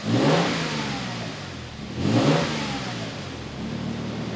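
Toyota Tundra's twin-turbo V6 blipped twice from idle through a MagnaFlow Overland cat-back exhaust, once at the start and again about two seconds in, each rev rising and falling back to a steady idle. The exhaust note is 'pretty tame'.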